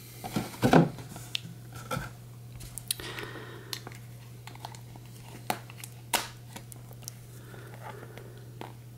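A small cardboard trading-card box being handled and its sealed flap worked at with a utility knife: scattered taps, scrapes and crinkles of card and wrapping, a few of them sharper than the rest.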